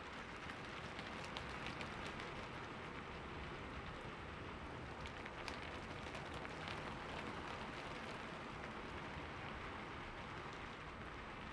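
Steady rainfall on a surface, a dense even patter with occasional sharper individual drops.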